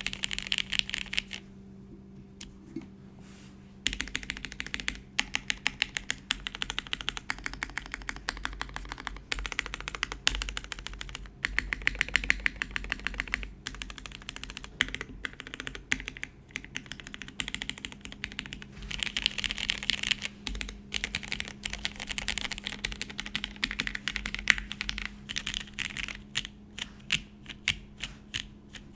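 Typing on a custom mechanical keyboard: a Monokei KFE CE with lubed, filmed vintage Cherry MX Black linear switches on a polycarbonate plate. It is a fast stream of keystroke clacks, with a pause of about two seconds near the start and slower, separate keystrokes near the end.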